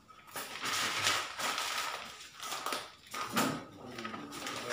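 Irregular scratchy scraping and crinkling of reflective sticker sheeting being cut and worked with a cutter knife on a road-sign panel, in several uneven swells.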